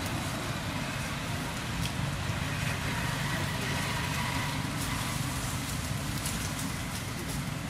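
Steady low rumble of a motor vehicle engine running, with a few faint crackles over it.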